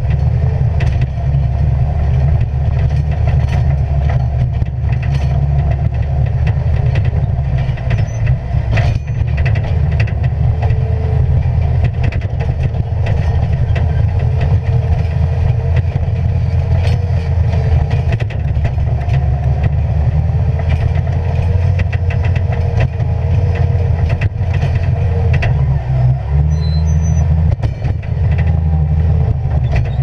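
Bobcat skid steer's diesel engine running hard, heard from inside its open cage cab while it pushes snow. Its low note shifts up and down a few times as the load changes, with scattered clicks and rattles over it.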